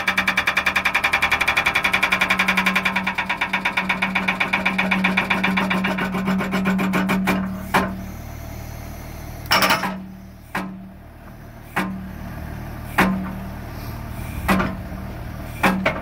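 Skid-steer-mounted Bobcat hydraulic breaker hammering rapidly and evenly, then stopping abruptly about seven seconds in. After that it strikes single heavy blows every second or so, over the skid steer's engine running steadily.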